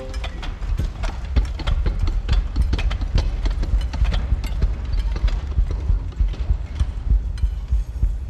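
Sports wheelchairs pushed across a wooden gymnasium floor: a steady low rumble of wheels rolling, with many irregular clicks and knocks as the chairs are driven by hand on the push rims.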